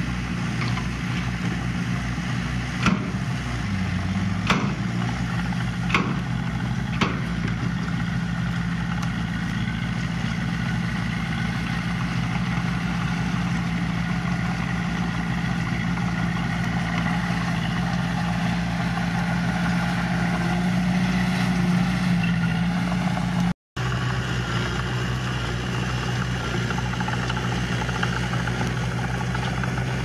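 Diesel engine of earthmoving equipment running steadily, with a few sharp knocks in the first several seconds. The sound drops out for a moment near the end, then the engine carries on at a slightly different pitch.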